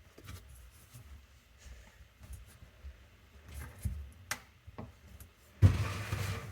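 Handling noises from working on plumbing parts under a sink: scattered light clicks and taps, then about five and a half seconds in a loud rustling, scraping burst lasting about a second.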